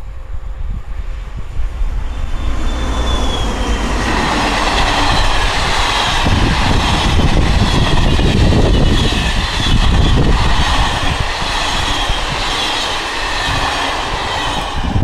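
A train of withdrawn passenger coaches rolling past, the wheels clattering over the rails, with a thin high squeal from the wheels. The sound builds from about two seconds in and is loudest in the middle.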